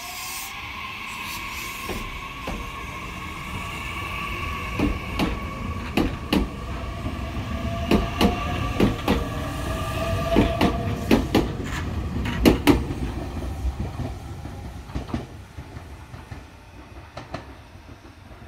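Meitetsu 9500 series electric multiple unit pulling away: its inverter-driven traction motors whine in tones that rise in pitch as it accelerates. The wheels clack over rail joints in close pairs as each car passes, loudest midway, then the sound fades as the train moves off.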